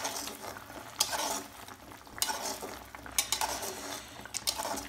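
Steel spatula stirring a thick curry in a metal kadhai, scraping against the pan about four times, roughly a second apart.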